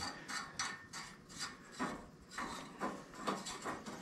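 Faint, irregular scraping strokes, metal rubbing on metal, about two or three a second, as a rusty threaded part of a 1941 Colson is worked by hand; the threads are rough and gritty near their end.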